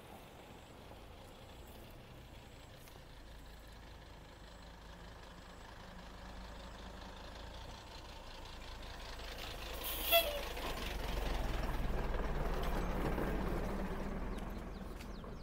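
A motor vehicle passing out of sight, its engine and tyre noise swelling to a peak and then fading away. A brief high-pitched squeak sounds about ten seconds in.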